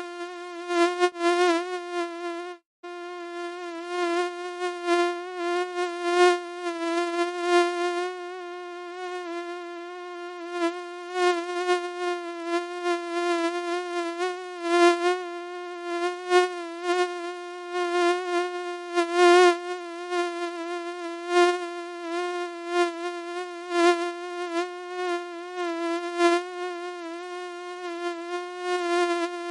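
Mosquito buzzing: a steady, high whine with many overtones, its pitch wavering slightly as it swells louder and fades again, as when the insect flies close and away. It cuts out for an instant about three seconds in.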